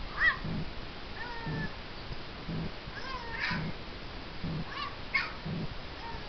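A dog whining in short high-pitched cries that rise and fall, several times, over a soft low pulse about once a second.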